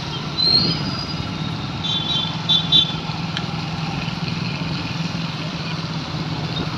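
Steady hum of street traffic with motorcycle engines running, over road noise. It is broken by a short rising high squeal about half a second in and two short high-pitched beeps around two to three seconds in.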